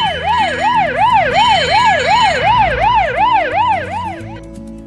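Ambulance siren in a fast yelp, its pitch sweeping up and down about three times a second, fading out near the end.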